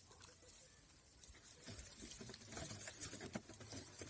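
Light, irregular patter of small ticks from about halfway in: oats being put out as feed, the grain pattering down.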